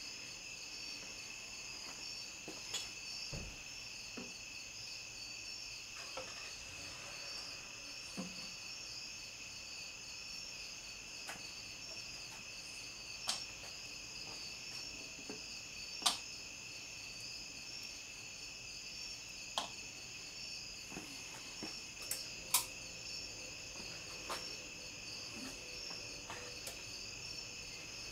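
Steady high-pitched chirring of insects, with scattered light clicks and taps as small metal votive cups are handled and set on a wooden board. The sharpest taps come about 16 and 22 seconds in.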